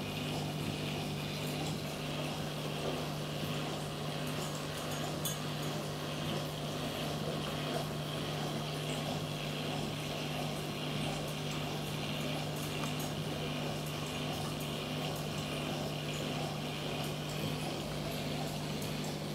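Steady low machine hum with a faint hiss over it, unchanging throughout, typical of the water pumps running a marine aquarium.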